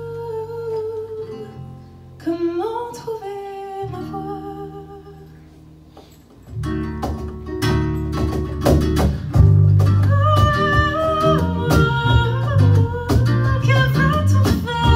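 Live band music: a woman singing with acoustic guitar and electric bass. The sound thins out and grows quieter, then the full band comes back in louder about six and a half seconds in.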